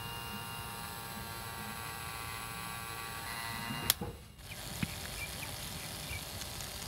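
Small DC motor of a homemade mini water pump whining steadily as it spins up and runs, cut off by the click of its rocker switch about four seconds in. After that comes a steady hiss as the pump's stream of water splashes.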